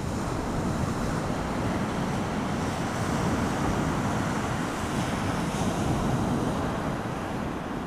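Strong wind blowing across the microphone over rough surf breaking on the shore: a steady, unbroken rush.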